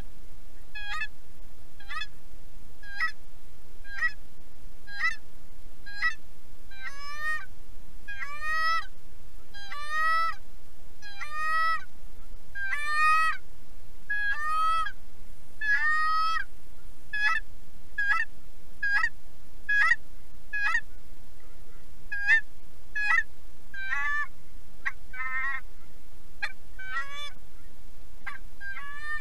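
Goose honks in a steady run of about two a second, each short call rising in pitch, louder and fuller about a third of the way through.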